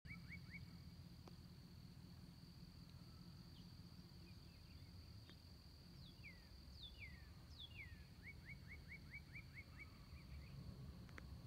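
Faint outdoor ambience: a songbird sings a few falling slurred whistles, then a quick run of short notes. Under it run a steady high insect buzz and a low rumble.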